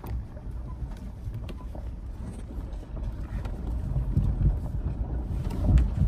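Rumble of a moving vehicle, with wind buffeting the microphone and scattered knocks and rattles. It grows louder toward the end.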